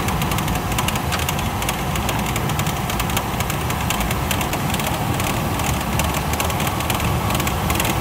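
Chevrolet Astro's 4.3-litre V6 idling with the air conditioning on, with a steady fast rattle, about as loud as the engine itself. The owner traces the rattle to the serpentine belt tensioner and suspects the tensioner and belt are worn.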